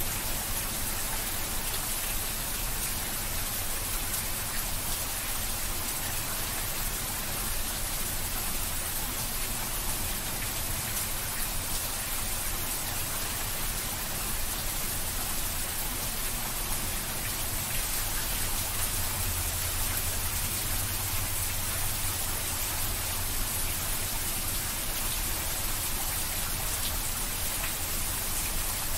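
Steady rain falling, a dense even patter of drops with no thunder.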